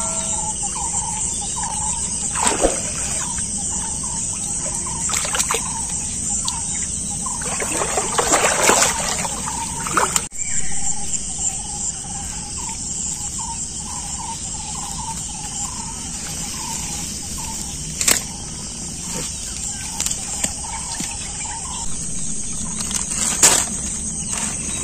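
Riverside ambience: a steady high-pitched insect drone, with an animal's short call repeated roughly every half second that stops near the end. A burst of rustling about eight seconds in and a few sharp knocks come from the wet net being handled.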